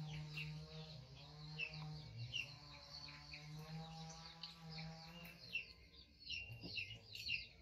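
Small birds chirping, faint, with short high calls repeating about twice a second, over a low steady hum that stops about two thirds of the way through.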